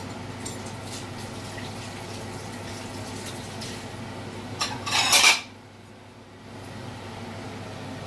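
Kitchen handling sounds over a steady low hum: a few faint clinks, then one loud, brief clatter about five seconds in.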